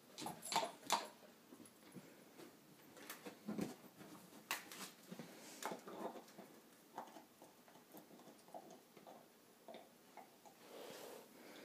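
Chocolate Labrador gnawing on a bone, making scattered, irregular clicks and knocks of teeth against bone, with one duller knock about three and a half seconds in.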